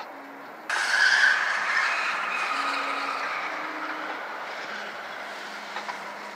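A Volvo's tyres squealing on a smooth concrete floor as the car launches hard. The squeal starts suddenly about a second in and fades slowly over the next few seconds, heard from inside the cabin.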